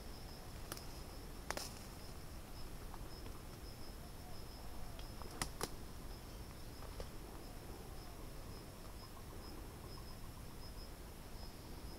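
Steady high-pitched insect trill, like a cricket, pulsing evenly throughout, over faint outdoor background noise. A few sharp clicks break in, once near the start, once a second and a half in, and twice in quick succession about five and a half seconds in.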